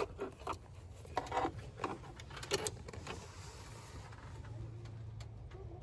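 A hand wrench working the negative battery terminal clamp as it is reconnected: several irregular metal clicks and knocks over the first three seconds, then only a faint steady hum.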